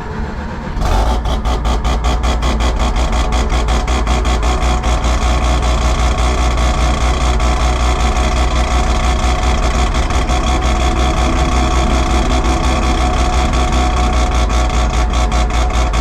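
Mazda rotary engine running at a steady idle with a rapid, even pulsing, coming in abruptly about a second in.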